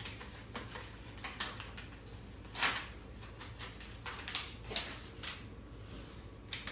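Paper and plastic packaging rustling and crinkling in hands, with irregular sharp crackles, the loudest about two and a half seconds in and again past four seconds.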